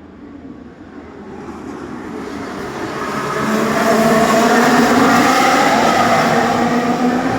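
Formula 1 car's 1.6-litre turbocharged hybrid V6 engine running, growing louder over the first four seconds and then staying loud, its pitch wavering slightly.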